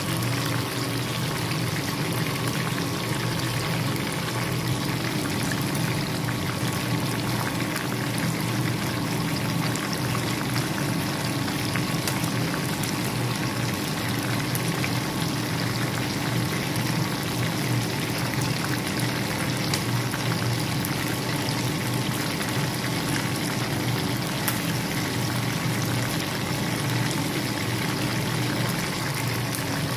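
Chicken wings frying in hot oil in a pan: a steady sizzle with fine crackles, over a steady low hum.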